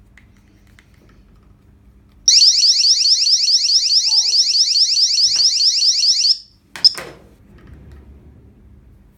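Anti-theft alarm of a mobile phone security display stand sounding: a loud, high-pitched electronic tone sweeping upward several times a second for about four seconds. It cuts off suddenly and is followed by a sharp click.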